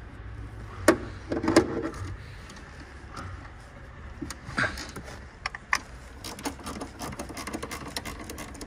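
Hand tools knocking and clicking while the rear strut top mount bolts are loosened. There are a few sharper knocks in the first two seconds and a run of quick light clicks near the end.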